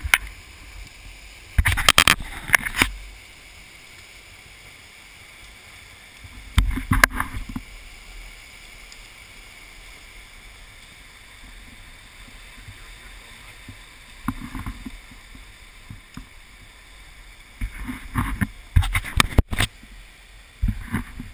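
Muddy flash flood rushing through a rocky wash, carrying a dense mat of logs and sticks: a steady rushing of water, broken by several loud rough bursts about two seconds in, about seven seconds in, and again near the end.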